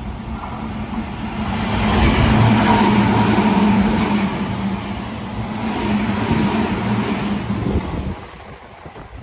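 Meitetsu 3500 series electric train passing close by: the rumble of wheels on the rails builds to its loudest about two seconds in, swells again, then drops away suddenly about eight seconds in.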